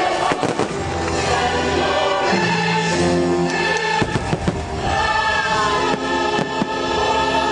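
A choir and orchestra sing and play the fireworks show's soundtrack. Several sharp bangs of fireworks bursting cut through the music, a few near the start, some about four seconds in and one more later.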